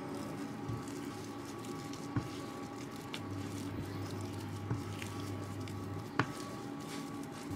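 Wooden spatula stirring and pressing thick mooncake filling paste in a pan, with soft squishing and scraping and a few light knocks of the spatula against the pan. A low hum starts about three seconds in and stops about six seconds in.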